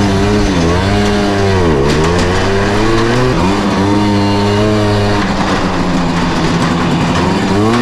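Simson S51 moped's 50 cc two-stroke single-cylinder engine running at low revs while riding, its pitch dropping and picking back up several times as the throttle is eased off and on, with the deepest dip about two seconds in, then holding steady and rising again near the end.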